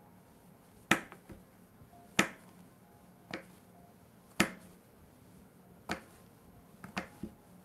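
Kitchen knife chopping a thick mushroom stem into rounds, each cut ending in a sharp knock of the blade on the cutting board: about six knocks a second or more apart, with a few lighter taps between.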